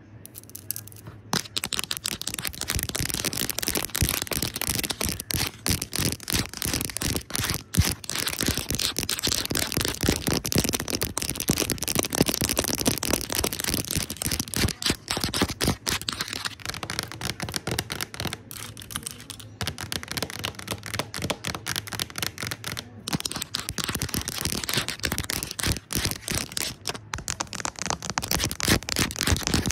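Fast, aggressive tapping on a camera screen: a dense run of quick taps that starts about a second in and keeps going, with a few brief pauses.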